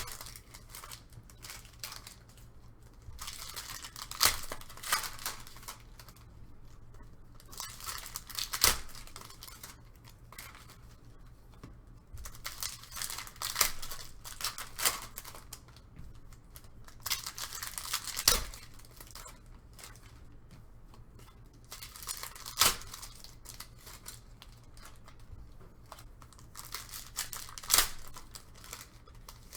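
Trading card packs of 2019-20 NBA Hoops being torn open one after another, the foil wrappers ripping and crinkling. Each pack gives a sharp tear every four to five seconds.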